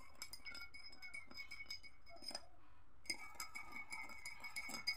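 A metal teaspoon stirring liquid in a small ceramic cup, making faint, rapid light clinks against the cup's wall, with the cup ringing on after them. The stirring pauses briefly about halfway, then resumes.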